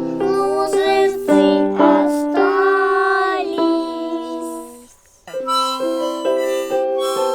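Music: a melodic passage with held and gliding notes that fades out about five seconds in, then a new instrumental passage of sustained notes begins.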